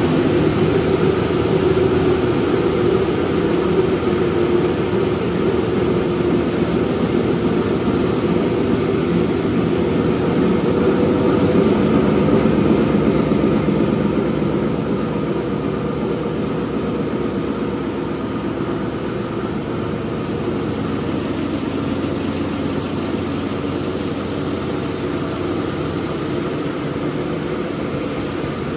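CIL-SP-D maxi-roll toilet paper and kitchen towel rewinding line running steadily, its rollers and drives making a continuous mechanical noise, a little quieter after about halfway.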